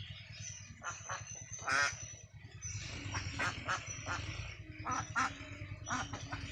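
Ducks on a farm calling and quacking in short, repeated calls, the loudest about two seconds in, over a steady low hum.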